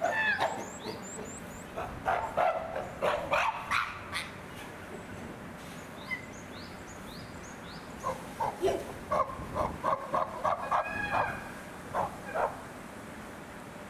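Chimpanzees calling in short, pitched, bark-like calls that come in bursts, including a run of about ten quick calls at roughly three a second about eight seconds in.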